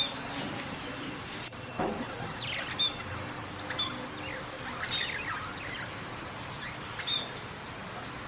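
Birds chirping: short high chirps and quick falling notes, repeating roughly once a second over a faint steady background hiss.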